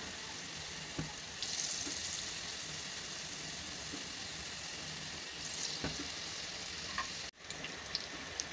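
Battered green chillies (mirchi pakoras) deep-frying in hot oil: a steady sizzle with scattered small pops, growing louder about a second and a half in.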